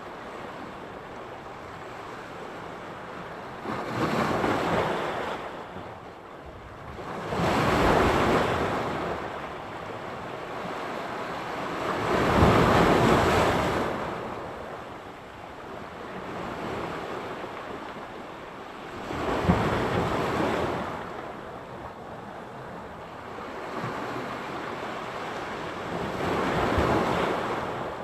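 Sea surf: waves breaking and washing ashore in slow surges every several seconds, over a steady hiss of water, with some wind on the microphone.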